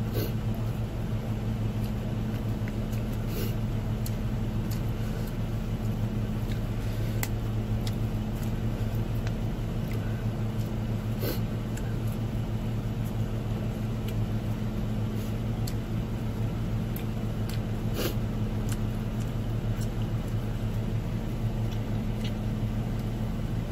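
Steady low hum of a car idling, heard from inside the cabin. Scattered soft clicks come every few seconds as food and foil trays are handled.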